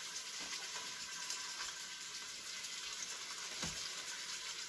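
Chicken thighs sizzling in hot olive oil in an Instant Pot's inner pot on the sauté setting, a steady soft hiss. A light knock about three and a half seconds in.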